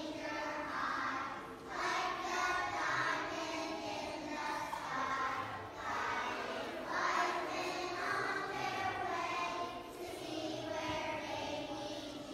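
A choir of young children singing together in phrases, with short breaks between lines.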